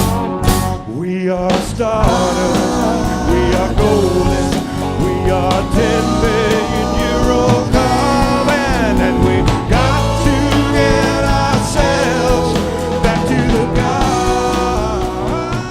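Rock band music with no words sung: a wavering, pitch-bending lead melody over bass and steady accompaniment, starting to fade near the end.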